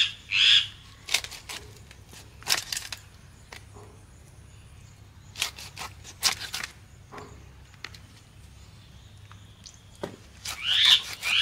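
A small blade cutting and scraping through a rohu fish's scaly body and bone, in short, sharp clicks a few seconds apart. Birds chirp just after the start and again near the end.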